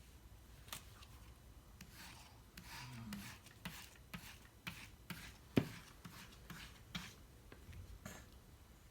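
Faint, irregular rubbing and scraping with soft clicks and taps, and one sharper knock about five and a half seconds in.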